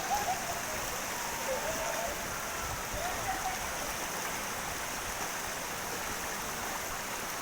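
Waterfall rushing: a steady, even wash of falling water. Faint voices come through in the first few seconds.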